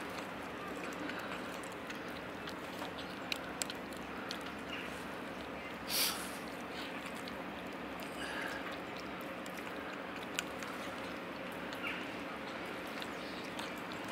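Several cats crunching dry kibble from a plastic tray: scattered small, sharp clicks over a steady background hum. About six seconds in there is a brief, loud hiss.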